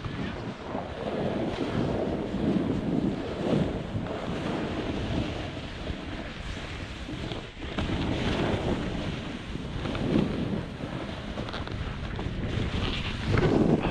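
Wind rushing over a body-worn camera's microphone while snowboarding downhill, mixed with the snowboard scraping over choppy, cut-up snow; the noise rises and falls in uneven swells.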